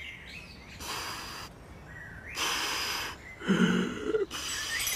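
Two forceful breaths blown out, each a hiss of air about a second long, as a cartoon character gives rescue breaths to revive someone; then a short voiced grunt near the end.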